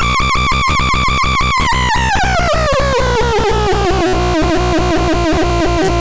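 Handmade Faranosnortron BX 603 experimental synthesizer sounding a fast-pulsing electronic tone, about six pulses a second. From about two seconds in the pitch glides steadily down and settles on a lower note about four seconds in.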